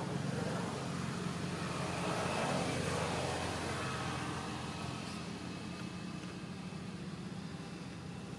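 A motor engine running steadily, a low hum that grows a little louder about two to three seconds in and then eases off.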